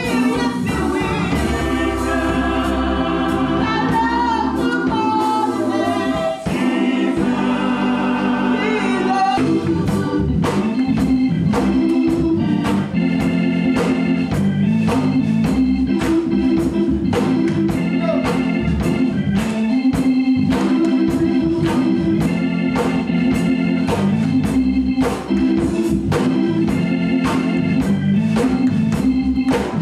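Gospel church music led by an organ. Held chords with a voice or line gliding over them give way, about nine seconds in, to a steady drum beat under the organ chords.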